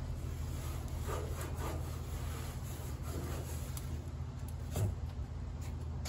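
Soft rubbing strokes, a few in a row, over a steady low hum, with one dull knock about five seconds in.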